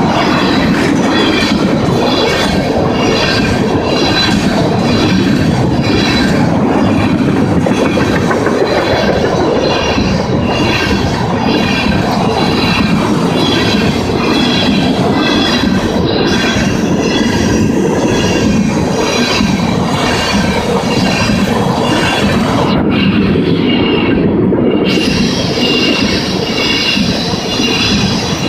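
Tank cars of a freight train rolling past, steel wheels clacking over rail joints with some wheel squeal. A grade-crossing bell rings about twice a second over it.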